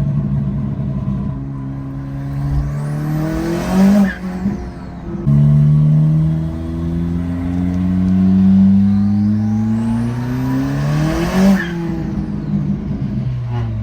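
Turbocharged Honda Civic 1.5-litre four-cylinder with an RV6 turbo, heard from inside the cabin, accelerating hard twice. Each time the engine note and a high turbo whistle rise together. About four seconds in, and again about seven seconds later, the throttle lifts with a short burst of air from the blow-off valve, and the engine note drops.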